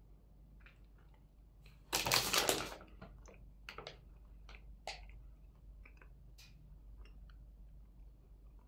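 A milk-chocolate-coated wafer biscuit being handled and eaten: a sharp crackle lasting under a second about two seconds in, then scattered small clicks and crunches.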